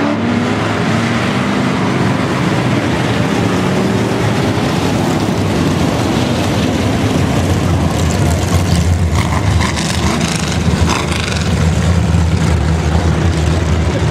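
A pack of hobby stock race cars running on a dirt oval, several engines together. Engine pitch rises in the first couple of seconds, and the sound grows louder and deeper from about eight seconds in as the bunched field comes through the turn.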